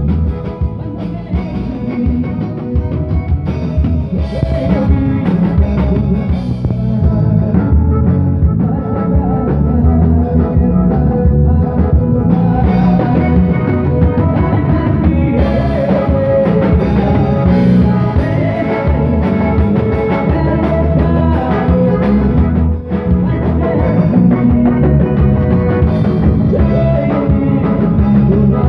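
Live sertanejo band playing amplified: accordion, electric bass, guitar and drum kit, with a singer on a microphone.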